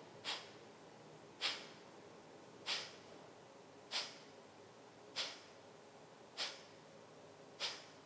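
Kapalbhati (skull shining breath): short, forceful exhalations pushed out through the nose by a sharp draw of the belly, one about every 1.2 seconds, seven in a row, each a brief hiss, with the soft passive inhale between them barely heard.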